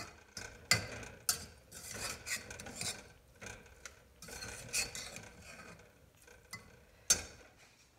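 A metal spoon stirring thick macaroni and cheese in a stainless steel saucepan, scraping and clinking against the pot, with a few sharp knocks of the spoon on the pot; the loudest knock comes near the end.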